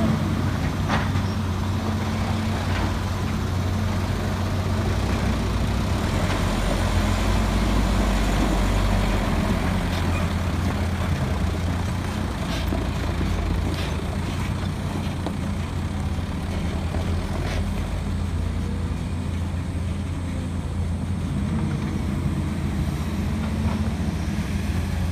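Heavy diesel engine running steadily, with a few faint knocks here and there.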